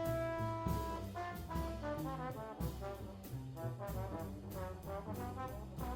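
Jazz soundtrack led by trombone, opening on a long held note and then moving into a quicker melody over bass and drums with a steady beat.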